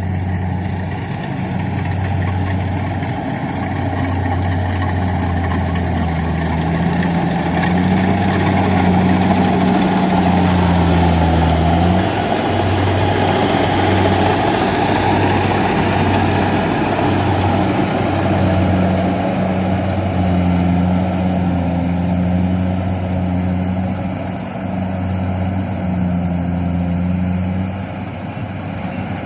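Rice combine harvester engine running steadily, a little louder for a few seconds before the middle.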